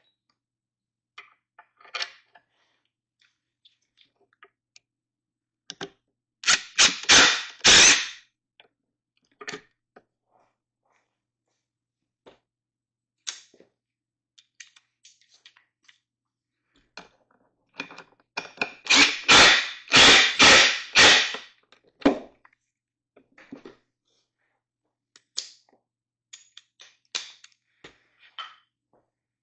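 Cordless impact driver hammering bolts into a wooden barstool frame in two bursts, one about six seconds in and one about eighteen seconds in, each lasting a couple of seconds. Light clicks and clatter of hardware being handled between them.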